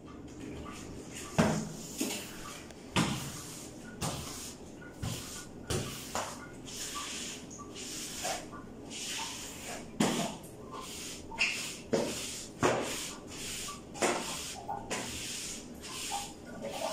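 A long-handled cleaning pole with a cloth head wiping and scrubbing tiled shower walls: repeated swishing strokes, with several sharp knocks where the pole or its head strikes the tile.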